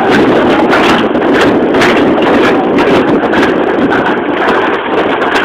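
Toboggan sled running down a concrete chute: a loud, steady rumble and rattle with scattered clicks and knocks, and wind buffeting the microphone.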